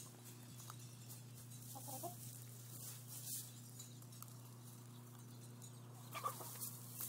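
Backyard hens clucking softly, a short call about two seconds in and another near the end, over light pecking and rustling in straw as they feed on scratch grain. A steady low hum runs underneath.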